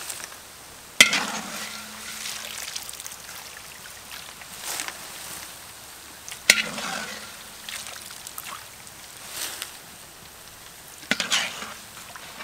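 Deep-frying oil sizzling and crackling as fried grasshoppers are scooped out with a wire strainer. Three sharp knocks, each with a short ring, about a second in, halfway through and near the end.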